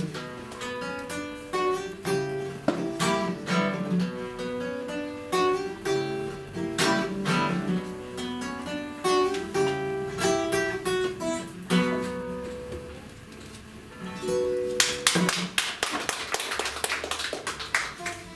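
Nylon-string classical guitar played solo: plucked notes and chords, then a burst of fast strumming about fifteen seconds in.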